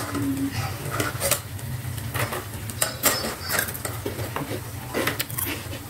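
Metal kitchen utensils clinking and tapping against a metal wok, about eight irregular clicks, over a steady low hum.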